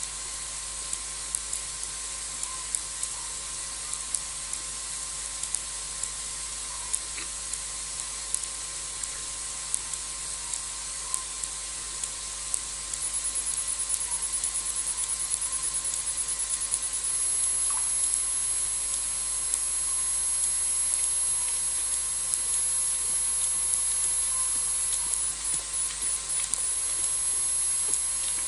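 Night-time African bush ambience: a steady hiss with scattered faint clicks. About halfway through, a thin, very high insect trill comes in, fast-pulsing at first and then held steady.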